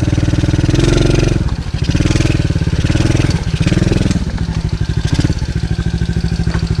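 TaoTao DB14 110cc single-cylinder four-stroke dirt bike engine running under way, its revs rising and falling several times as the throttle is opened and eased off.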